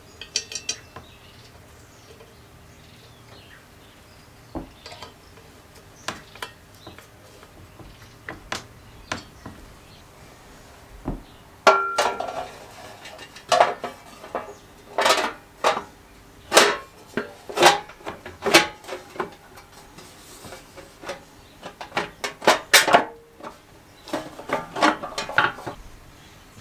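Metal parts and hand tools clinking and knocking together during engine assembly, scattered light clicks at first, then louder, quicker clinks from about halfway through.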